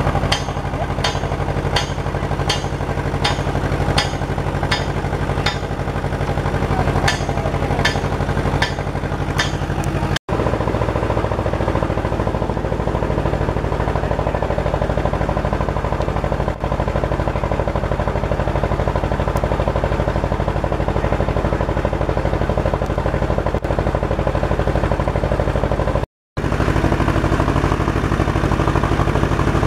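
An engine running steadily at a constant speed, with a regular click about twice a second over the first ten seconds. The sound breaks off for a moment twice.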